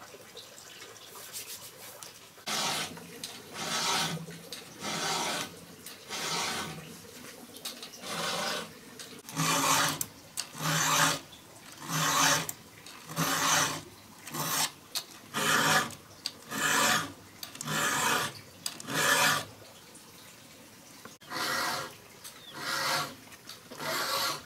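A hand tool rasping across wood in rhythmic back-and-forth strokes, about one a second. The strokes start about two seconds in and pause briefly near the end before resuming.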